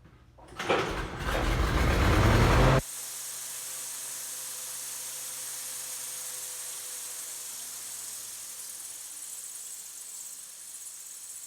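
Continental F162 engine of a 1948 Lincoln SA-200 short-hood welder starting up and speeding up, loud, for about two seconds before it cuts off suddenly. A steady, quieter hiss follows.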